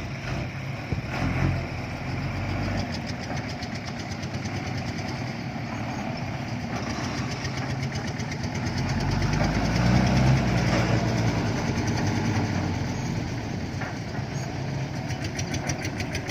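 Heavy diesel engine running steadily, growing louder about ten seconds in and then easing back.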